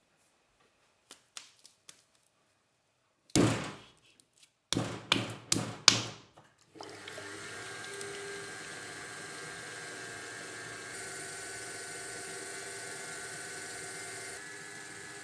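Several heavy thuds of wet clay being slapped and pressed down in the first half. Then an electric potter's wheel starts running, a steady hum and whir with a few fixed tones, as the clay is centred on it.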